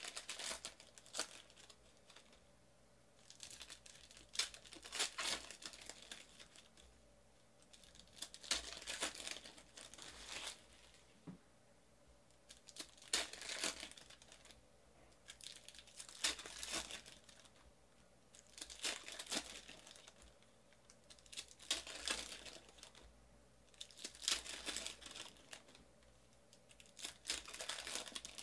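Wrappers of Panini Prizm basketball trading card packs being torn open and crinkled by hand. There are about nine separate bursts of crinkling, a few seconds apart.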